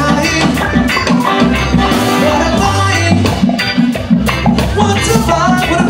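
Live reggae band playing at full volume: bass guitar, electric guitars, keyboards and drum kit in a steady groove, with the lead singer's voice over the mic.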